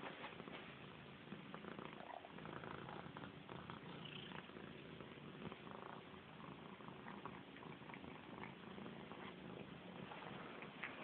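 House cat purring steadily and softly while being stroked, with small clicks and rustles over the purr.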